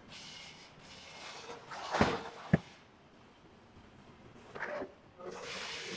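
Handling noises as the deflated inflatable column is laid out: soft rustling, with a sharp knock about two and a half seconds in and more rustling near the end.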